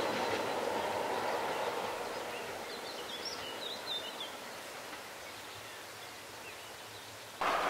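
Class 47 diesel locomotive and its coaches running away into the distance, the rumble fading steadily, with a bird chirping briefly about three seconds in. Near the end a louder train sound cuts in suddenly.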